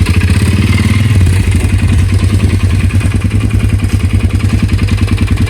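ATV engine running with a rapid, even putter.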